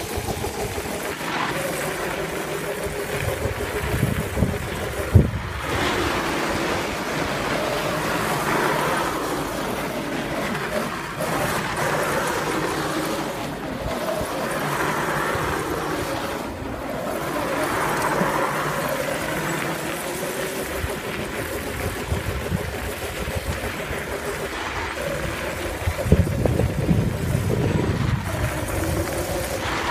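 Modified 36-volt Power Wheels Lightning McQueen ride-on car driving and drifting: its electric motors and chain drive whine, rising and falling in pitch with speed, while the wheels skid and scrabble over loose gravel. A single sharp click about five seconds in.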